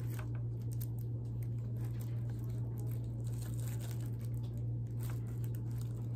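Intermittent rustling and crinkling from a disinfecting wipe rubbed over a power adapter box and its cord by gloved hands, over a steady low hum.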